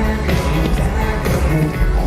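Loud pop music with a heavy bass beat.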